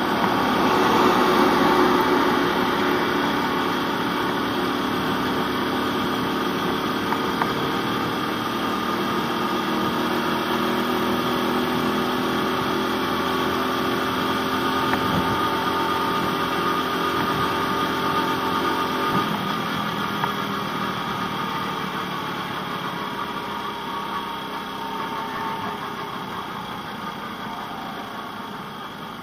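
Motorcycle engine running at a steady cruise, a constant engine note over rushing road noise. About twenty seconds in it eases off and the sound fades gradually as the bike slows down.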